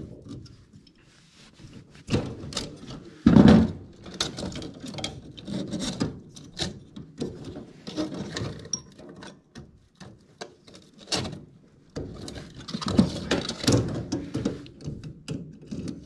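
Hand-work on furnace wiring: irregular rustling, scraping and clicking of pliers and wires being handled, with a louder knock about three seconds in.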